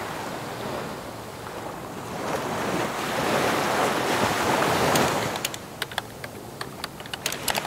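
Ocean surf rushing, swelling to a peak about five seconds in and then easing off. Over its tail comes a quick, irregular run of keyboard-typing clicks.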